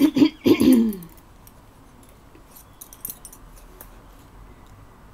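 A short, loud groan falling in pitch near the start, then scattered light clicks of crochet hooks knocking together in a fabric hook roll as a larger hook is picked out.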